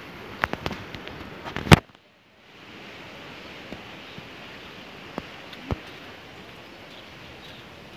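Steady outdoor background hiss with scattered sharp clicks and knocks. The loudest knock comes just before the sound cuts out completely for about half a second, then the hiss fades back in.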